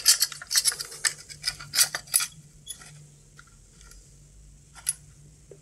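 Small metallic clinks and clicks from a radiometer's circuit board and its parts being handled. A quick run of clicks comes over the first two seconds, then a few separate clicks follow.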